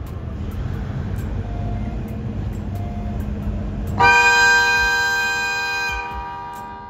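JR Freight DD200 diesel-electric locomotive running with a low rumble as it pulls away, then sounding its horn once, a steady blast of about two seconds that starts about four seconds in and trails off.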